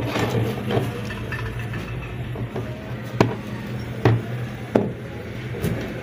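Handling noise: several light knocks and clicks as wires, a plastic lamp holder and a small motor are handled and connected on a wooden tabletop, over a steady low hum.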